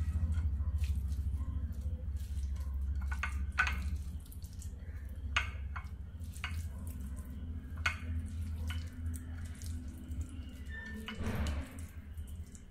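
Hands squishing and tossing sliced bitter gourd through a thick gram-flour batter, with wet squelches and short clicks, over a steady low hum that fades near the end.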